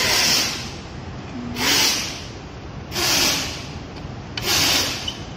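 Rasping, rubbing strokes, about one every second and a half, four in all, as screws are turned out of an electric scooter's deck cover plate with a hand tool.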